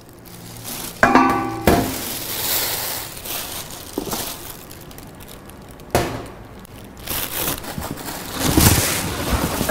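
Plastic packaging rustling and crinkling as coffee-urn parts are unwrapped and pulled from a cardboard box. There are a few sharp knocks as parts are set on a steel table, and a brief pitched sound about a second in.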